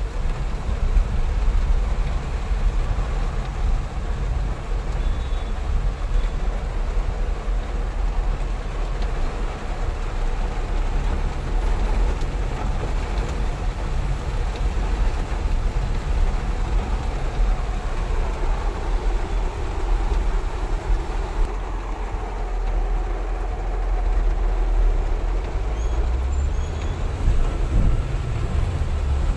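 Steady low rumble inside a car's cabin: engine and road noise heard through closed, fogged windows.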